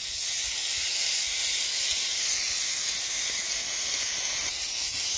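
Burgers and asparagus frying in bacon grease on a Blackstone flat-top griddle, a steady loud sizzle.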